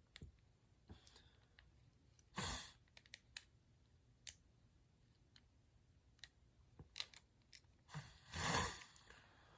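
Faint, scattered clicks of small plastic toy parts being handled and fitted together, with two audible exhales or sighs, one about two and a half seconds in and a longer one near the end.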